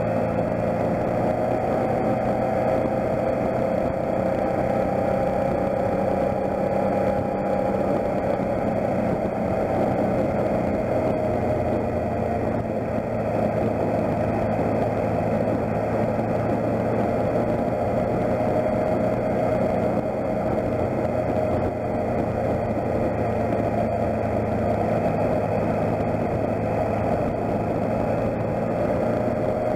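Motorcycle engine running at a steady cruise, with wind and tyre noise from riding on a wet road.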